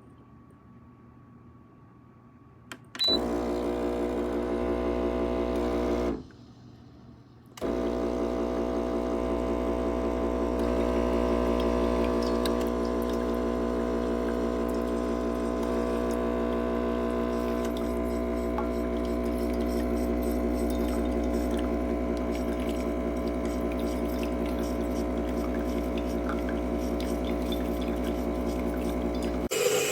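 Espresso machine's pump running with a steady buzzing hum as water and liquid run through, starting about three seconds in, cutting out briefly, then running on steadily.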